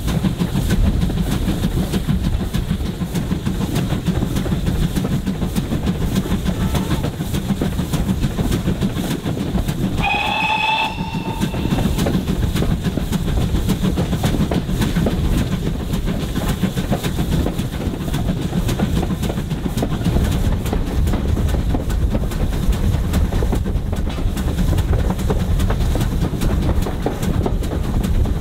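Steady rumble and clatter of a train running on the line, with a short whistle about ten seconds in, lasting about a second.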